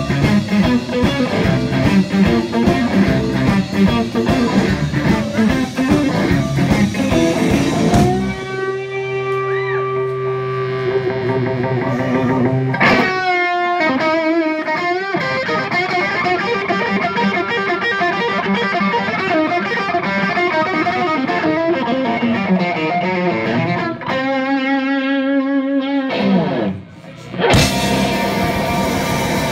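Live blues band with a Stratocaster-style electric guitar, bass and drums, recorded on a phone. About eight seconds in, the bass and drums drop out and the guitar plays alone with held, bent and wavering notes. The full band comes back in near the end.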